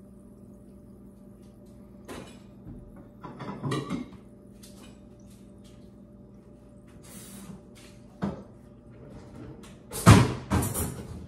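Scattered clicks, knocks and rustles of food and containers being handled while eating, with a louder clatter of several quick knocks near the end, over a faint steady hum.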